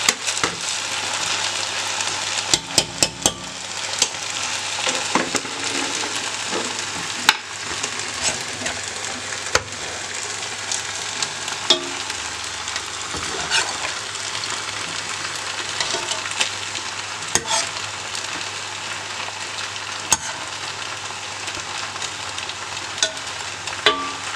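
Steady sizzling from the biryani pot. A metal spoon clinks and scrapes against it every few seconds, with a quick run of clinks about three seconds in, as cooked rice is spooned over the chicken gravy to make a layer for dum biryani.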